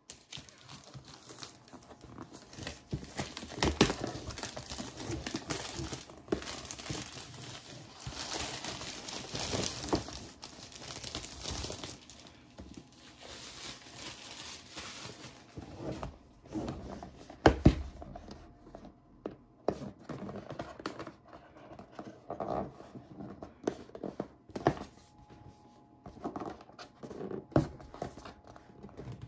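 Clear plastic shrink-wrap crinkling and tearing as it is peeled off a cardboard box, for about the first twelve seconds. Then quieter handling of the bare cardboard box, with a sharp thump a little past halfway and scattered taps and scrapes.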